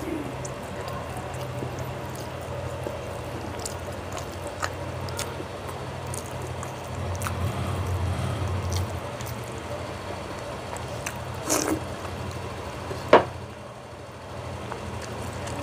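Close-up eating sounds of a person eating rice and curry by hand: wet chewing and mouth clicks, with fingers squishing and mixing rice on the plate. A steady low hum runs underneath, and there is a sharper click near the end.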